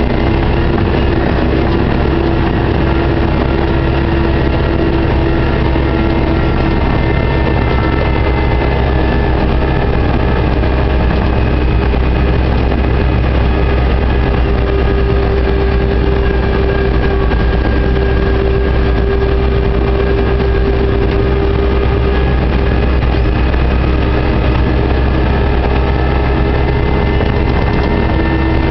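JCB 532-120 telehandler's diesel engine and drivetrain running steadily under way, heard from inside the cab: a loud, even drone with a deep rumble and steady tones above it.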